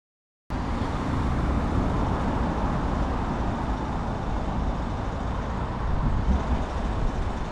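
Steady road traffic noise, starting abruptly about half a second in after a moment of total silence.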